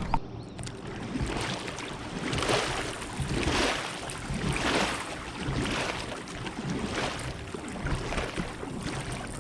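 A paddle dipping and pulling through river water from a paddle board, one swishing stroke about once a second.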